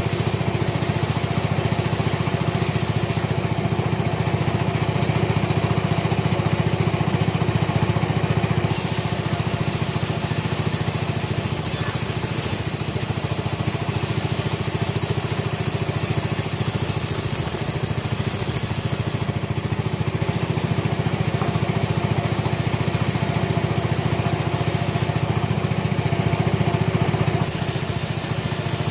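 A sawmill's machinery running steadily: an even, low engine-like drone with no pauses.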